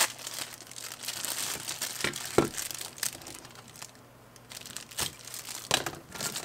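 Clear plastic packaging bag crinkling and rustling as it is handled and crumpled in the hand, with a few sharp clicks.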